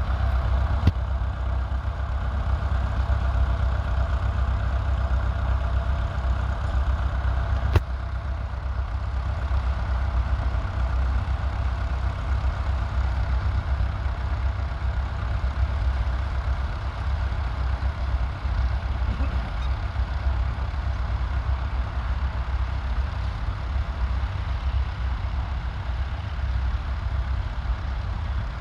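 David Brown 950 tractor engine running steadily while pulling a plough, with a deep rumble underneath. A sharp click comes just after the start and again about eight seconds in.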